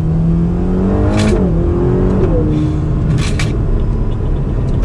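2021 Ferrari Roma's twin-turbo V8 accelerating, its pitch rising and then dropping sharply twice, about one and two seconds in, at quick upshifts before running steady. Heard from inside the cabin over tyre and road noise.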